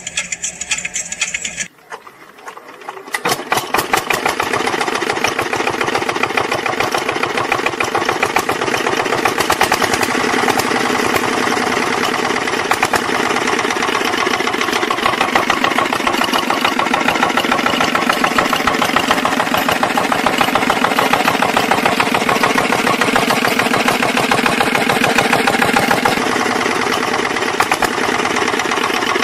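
Miniature toy model engine starting up about three seconds in, then running with a fast, steady mechanical clatter while it drives a miniature hand pump through a string belt.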